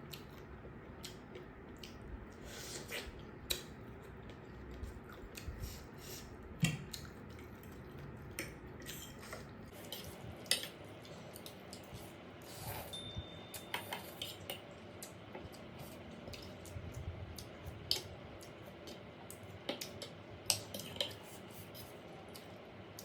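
Cutlery tapping and scraping against a dish while a bowl of noodles is eaten: irregular light clicks, a few louder ones, scattered throughout.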